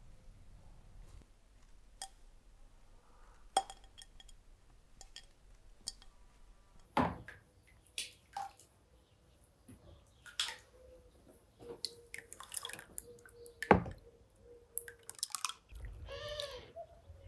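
A metal ladle scooping beaten egg from a plastic tub, with a few sharp knocks of ladle on tub and liquid egg splashing and dripping. A gurgling pour near the end.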